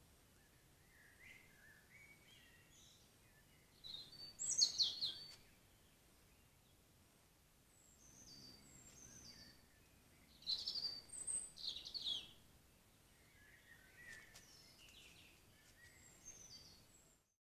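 Woodland songbirds singing, with two louder song phrases about four seconds in and again about ten to twelve seconds in, and fainter calls between them.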